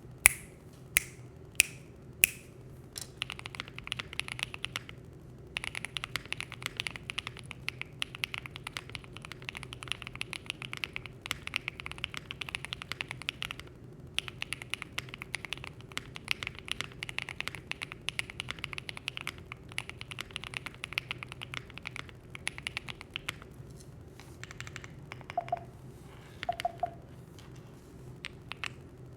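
QK65 V2 mechanical keyboard with Gateron Green Apple linear switches, GMK Analog keycaps, an FR4 plate and the kit's foam, being typed on. It opens with four single loud key strikes, then fast continuous typing with two short pauses, thinning to scattered presses near the end. Near the end there are also two brief pairs of tonal blips.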